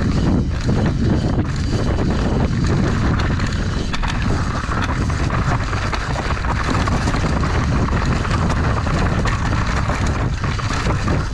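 Wind buffeting the camera microphone as an enduro mountain bike descends at speed, its tyres rolling over dirt, leaves and rock, with frequent knocks and rattles as the bike hits rocks.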